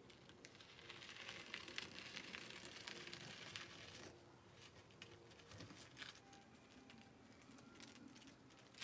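Faint rustling and crinkling of a vinyl stencil sheet as hands press and smooth it over a coir doormat, busiest over the first few seconds, with a few small clicks later.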